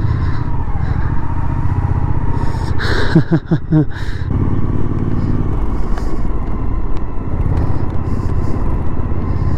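Suzuki V-Strom adventure motorcycle's engine running as it is ridden slowly over a dirt road, with a brief rise in pitch a little past the middle.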